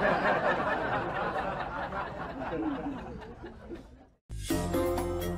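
People laughing, fading away over about four seconds, then a brief silence and music starting.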